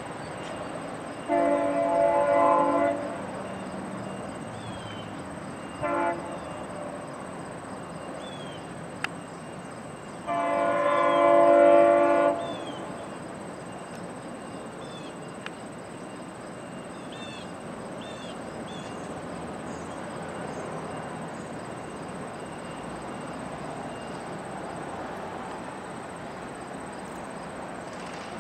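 GO Transit commuter train's chord horn sounding in the distance: a long blast, a short blast, then a longer, louder blast, the warning pattern typical of a train nearing a grade crossing.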